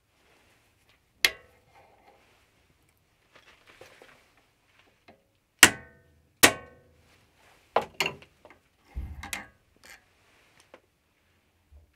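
Small hammer tapping the steel internal spindle stop in a mini lathe spindle to free its expanding sleeve: three sharp metallic taps that ring briefly, one about a second in and two close together near the middle. Smaller clinks and handling noise follow as the stop is pulled out of the spindle.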